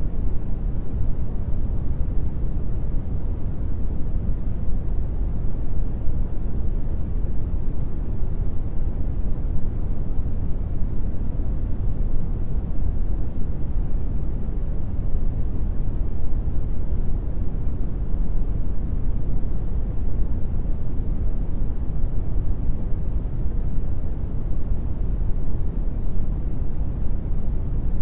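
Steady brown noise: an even, deep rumbling hiss, strongest in the low end and fading toward the highs, with no change in level.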